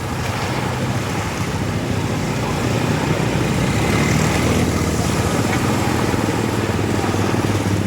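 An engine running steadily with a low hum, over the wash of sea waves and wind, growing a little louder about three seconds in.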